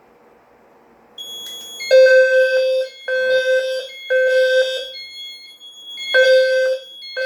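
Fire alarm system in alarm after a smoke detector test: a horn buzzing in the three-pulse temporal pattern, three pulses then a pause, over a steady high-pitched electronic tone from the detector's sounder base that starts about a second in. Everything is sounding, not just the sounder base, which the owner takes for a zone programming problem.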